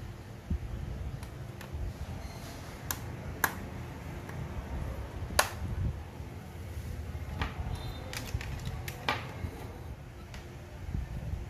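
Spring-loaded speaker-wire push terminals on a Sony CFS-1133S boombox circuit board being pressed and let go, giving a scattering of sharp plastic clicks over a low rumble of handling.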